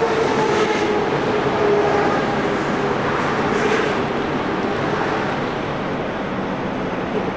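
Heavy wrecker's diesel engine running steadily while it powers the crane boom lifting the truck body, with a faint whine that fades out about four seconds in.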